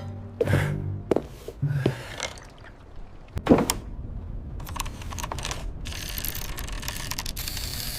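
Mechanical sound effects: a few sharp clunks and knocks, then a quick run of clicks, giving way to a steady hiss near the end.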